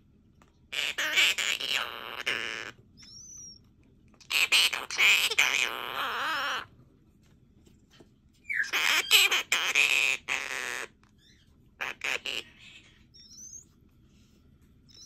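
Monk parakeet singing a tune to a cockatiel chick, in three phrases of about two seconds each with short pauses between, followed by a few brief chirps.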